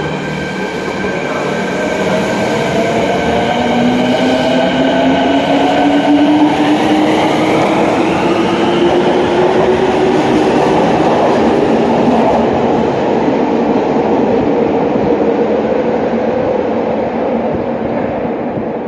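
Subway train pulling out of the station: its motor whine climbs steadily in pitch as it gathers speed. The running noise swells to a peak midway, then fades as the train draws away.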